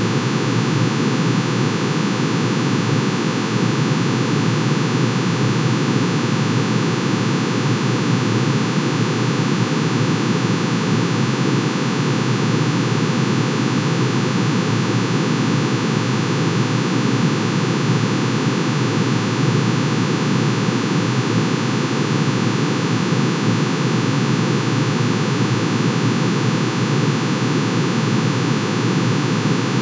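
Synthesized sonification of manganese's atomic emission spectrum: many sine tones, one for each spectral line, summed into a steady dense hiss-like chord that does not change.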